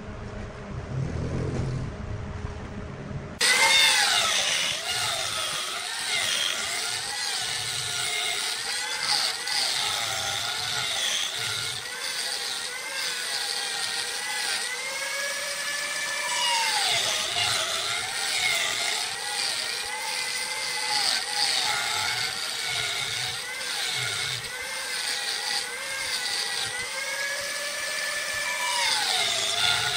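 Wood lathe running while a piece is turned: a steady motor whine whose pitch sags and recovers several times as the cut loads it. An abrupt change about three seconds in replaces a lower rumble.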